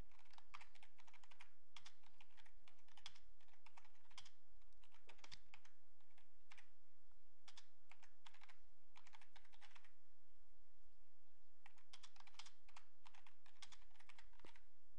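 Typing on a computer keyboard: runs of quick keystroke clicks, thinning out and pausing for a second or two about ten seconds in, then resuming.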